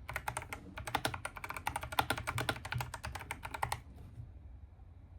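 Fast typing on a Kreo Hive mechanical keyboard with tactile brown switches, a quick run of key clicks that stops a little under four seconds in.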